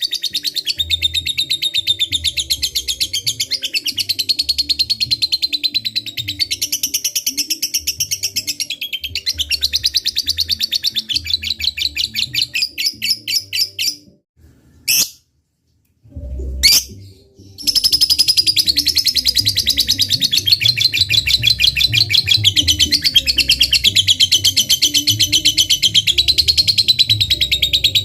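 Lovebird singing a long 'ngekek' chatter: a fast run of high, rapidly repeated notes. About halfway it breaks off for a few seconds with a couple of short single chirps, then starts up again.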